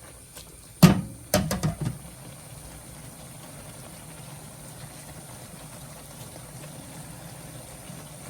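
A utensil knocks against the pan a few times about a second in while the pancit habhab noodles are tossed, then the noodles simmer in their broth with a steady low bubbling.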